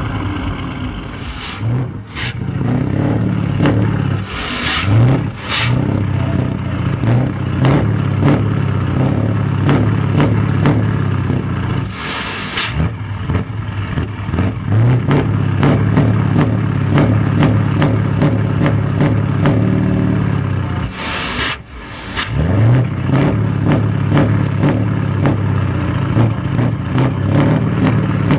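Scania 164L 480's 16-litre V8 diesel running through an open exhaust pipe with no silencer, revved up and held several times, its pitch dropping away and climbing again, with sharp drops about two seconds in and again near twenty-one seconds.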